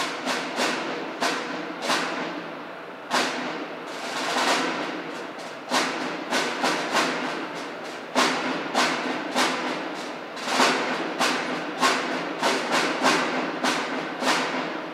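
Drums beating in an uneven rhythm, about two sharp strokes a second, each one ringing out with an echo. The drumming stops near the end.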